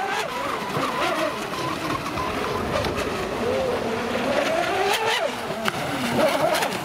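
Radio-controlled racing boats' small engines running at high revs, their pitch wavering up and down as the boats speed past and turn on the water.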